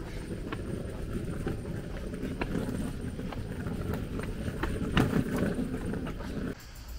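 Footsteps walking on a paved lane, a regular series of sharp steps over a low rumble of wind and handling on a handheld camera's microphone. The rumble stops suddenly near the end.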